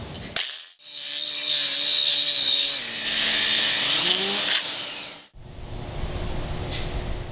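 AGP TC402 two-speed tile core drill running in first gear with a 40 mm core bit, dry drilling into wall tile. Its steady whine drops slightly in pitch about halfway through as the bit takes the load. It cuts off abruptly after about five seconds, leaving quieter background noise.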